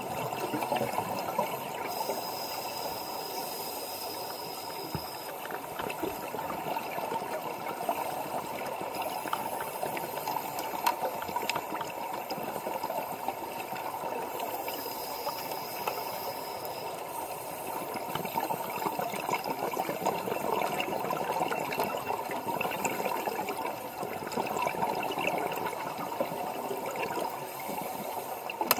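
Underwater bubbling and gurgling from scuba regulators, as divers breathe out streams of air bubbles. It runs on steadily and swells and eases every few seconds.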